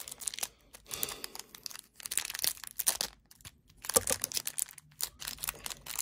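Thin clear plastic protective film crinkling and crackling as hands pull and work at it on an action figure's arm, in irregular bursts of rustling.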